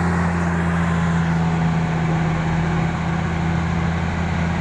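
Excavator's diesel engine running with a steady, even drone.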